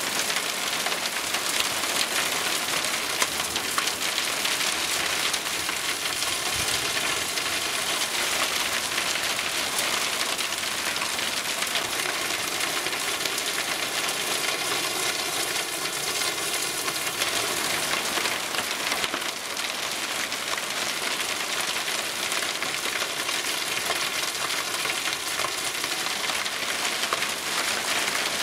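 Cloudburst downpour with pea-sized hail: a dense, steady hiss of heavy rain, dotted with many sharp ticks of drops and hailstones striking.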